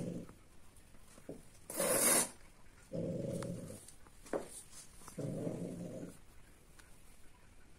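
Cat giving low, drawn-out growling yowls: one fades out at the start, then two more about two seconds apart. These are typical calls of cats at mating time. A short, loud, hiss-like burst comes about two seconds in.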